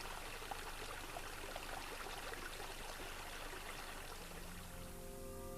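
Water of a small stream flowing and babbling steadily. Near the end, sustained music notes come in under it.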